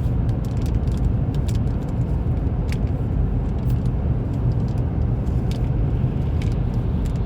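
Steady low rumble of a car's tyres and engine heard from inside the cabin while driving along a highway, with a few faint ticks.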